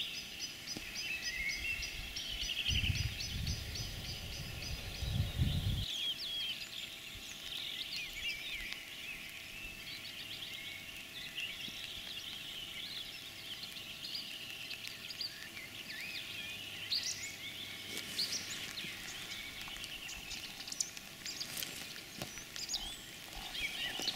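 Several songbirds chirping and singing at once, with a fast, even trill near the start. A low rumble comes in about three seconds in and lasts a few seconds.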